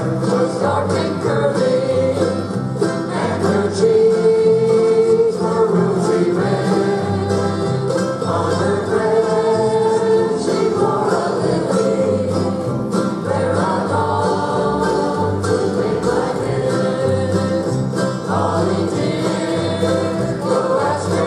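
A large acoustic string ensemble of mandolins, acoustic guitars and upright basses playing a bluegrass-style song while the group sings together, with long held notes over a walking bass.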